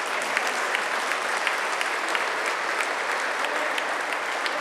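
Handball practice in an echoing sports hall: handballs knocking as they bounce on the wooden floor and are caught, with players' footfalls, heard as a dense, steady rush of noise with many sharp knocks scattered through it.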